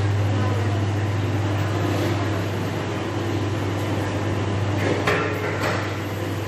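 Ginger-processing machinery running with a steady low hum over a noisy background, with a short clatter of knocks about five seconds in.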